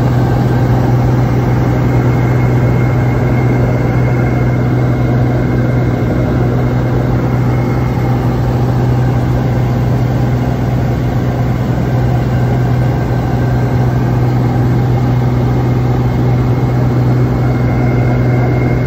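Propeller aircraft's engine drone heard inside the cabin, a steady low hum that does not change.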